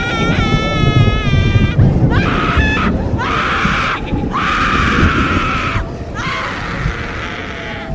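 Horror-effect screaming: a wavering, shaky shriek, then several long harsh screams with short breaks between them, over a low rumbling background.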